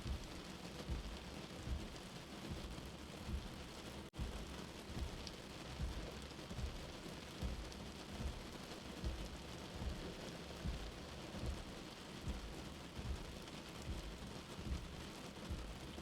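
Steady rain, as heard from inside a shelter, with a soft low heartbeat pulsing a little faster than once a second. The sound cuts out for an instant about four seconds in.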